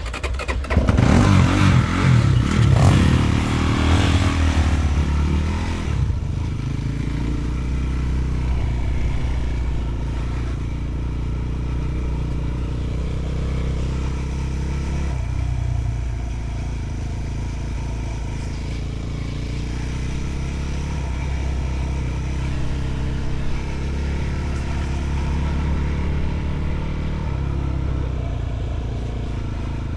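Enduro motorcycle engine revving hard for the first few seconds, then running steadily at lower revs.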